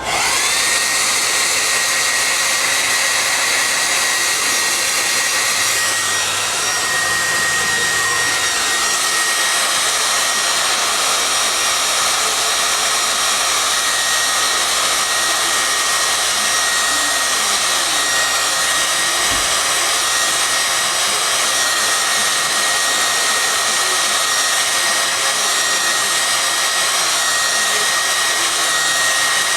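Handheld hair dryer blowing steadily, switched on at the start, with a constant high-pitched whine over its airflow noise.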